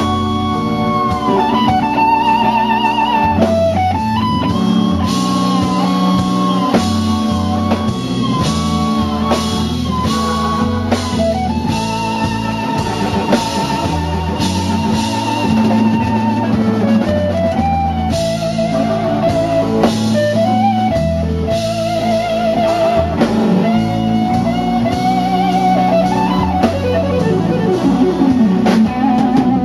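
Background music: an instrumental passage of a slow blues song, with a guitar lead playing long held, wavering notes over bass and drums.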